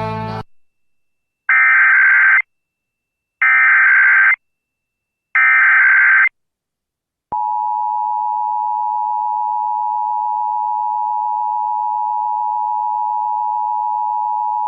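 Emergency Alert System test tones: three bursts of SAME header data, each about a second of harsh digital warbling, followed about seven seconds in by the steady two-tone EAS attention signal, which holds. A music track cuts off at the very start.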